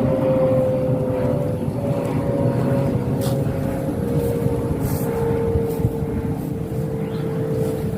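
A motor engine running steadily, its pitch sinking slowly, with a few brief hisses over it.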